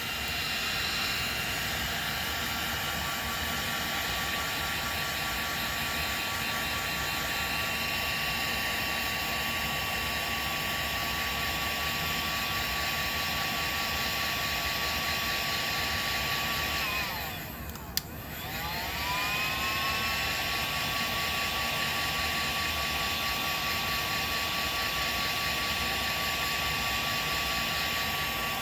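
Heat gun blowing, its fan motor giving a steady whine over the rush of air. About two-thirds of the way through it winds down, there is a sharp click, and it spins back up to full speed.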